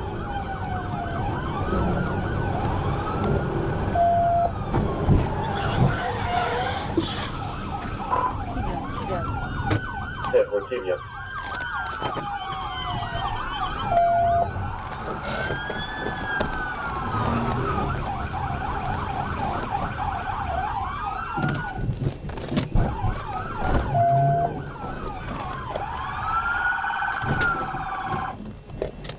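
Police sirens wailing, several overlapping rising-and-falling tones, over steady vehicle engine and road noise. A short beep sounds about every ten seconds.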